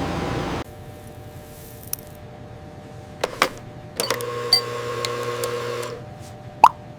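Production machinery: a low steady hum broken by several sharp mechanical clicks, with a motor whirring for about two seconds near the middle.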